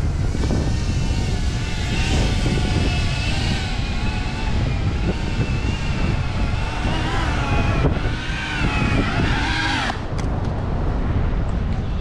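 FPV quadcopter's motors whining, the pitch rising and falling with the throttle, over wind noise on the microphone. The whine stops suddenly about ten seconds in, followed by a couple of small clicks.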